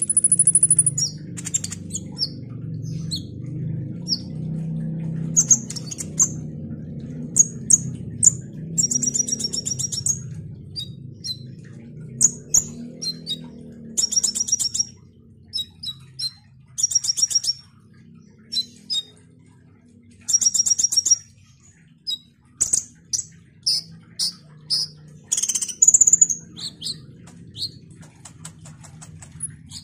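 Caged male kolibri ninja sunbird singing: short, sharp, high chirps mixed with bursts of fast, rattling trills, repeated throughout. A low steady hum runs underneath until about two-thirds of the way through.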